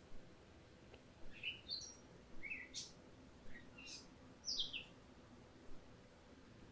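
A bird chirping a handful of short, quick notes, some rising and some sliding down in pitch, over a faint steady hum.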